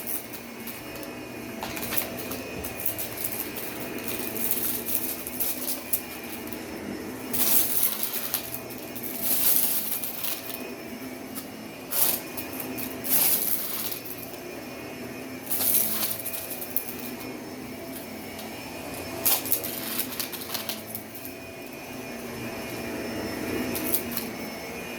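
Vacuum cleaner running steadily over carpet, with half a dozen short, louder crackling bursts.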